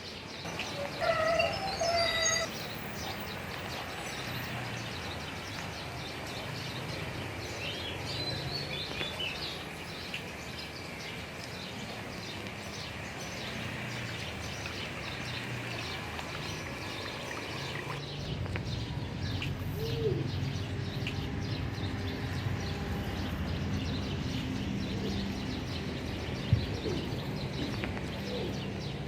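Birds chirping and calling over steady low background noise, with a louder, fuller call about a second in and small high chirps later.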